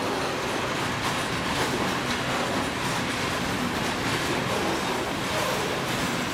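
Freight train of loaded covered hopper wagons rolling past at close range: a steady rumble of steel wheels on the rails, with the clatter of the wheels over rail joints.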